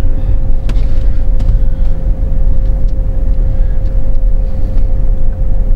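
2017 Chevrolet Colorado pickup coasting at a few miles an hour, heard from inside the cab: a steady low rumble of the running truck and its tyres, with a thin steady whine over it.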